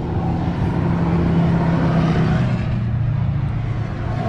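A road vehicle passing by: engine and tyre noise swell, then the engine tone drops in pitch as it goes past and fades.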